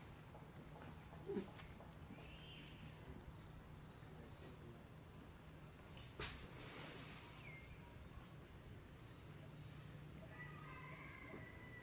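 Steady high-pitched insect drone, with a single sharp click about six seconds in and a few faint short chirps near the end.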